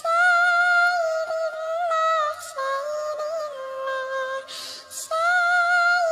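A voice holding long, melodious notes: three drawn-out tones with small pitch steps and short breaths between them.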